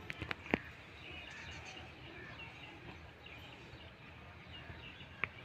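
Rural outdoor ambience with many small birds chirping. A few sharp clicks come in the first half second and another near the end.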